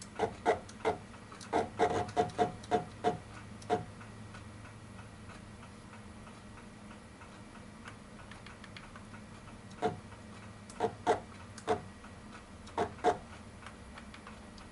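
Sharp, lightly ringing metallic clicks from the Taig mill's X-axis handwheel being worked to bring the table back to zero: an irregular run of clicks in the first few seconds, a pause of several seconds, then another run near the end.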